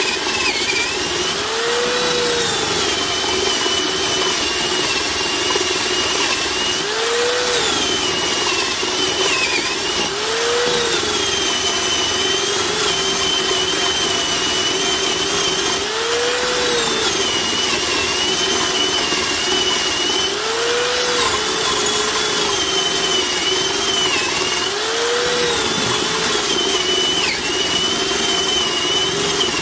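Black & Decker DR550 half-inch corded drill (7 amp, 800 rpm) running under heavy load, boring a large hole in wood with a self-feed bit that is dull and needs sharpening. A steady motor whine whose pitch briefly rises and drops back about six times as the load eases and bites again.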